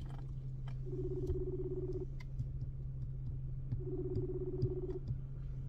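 Phone ringback tone over speakerphone while a call is placed: two ring tones, each about a second long and about three seconds apart, over a steady low hum.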